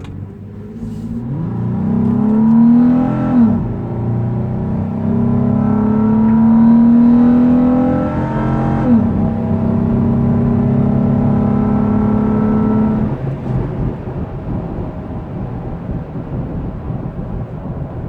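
2017 Toyota 4Runner TRD Pro's 4.0-litre V6 at about 90% throttle, breathing through a TRD Pro intake: the engine and intake note rises through the gears, dropping in pitch at upshifts about three and nine seconds in. About thirteen seconds in the driver eases off and it settles to a lower steady drone with road noise.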